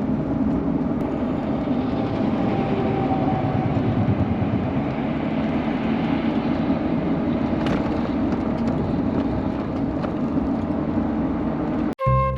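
Steady engine and road noise inside the cab of a moving Chevrolet. It cuts off abruptly near the end.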